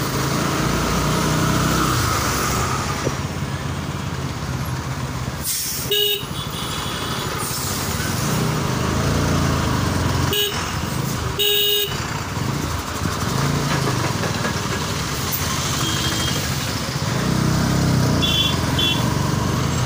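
Riding a motorcycle through dense road traffic: steady engine and wind rumble, with vehicle horns honking in short toots about three times midway and a few quick high beeps near the end.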